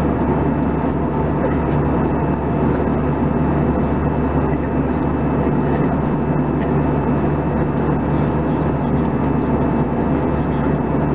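Steady cabin noise of an Airbus A320-214 in flight at altitude, heard from a window seat beside the wing: the drone of its CFM56 engines and the rush of airflow, with a constant low hum and a few faint steady tones over an even roar.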